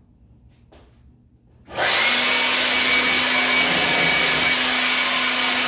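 Electric leaf blower switched on about two seconds in, then running steadily at full speed: a loud, even rush of air over a steady motor hum.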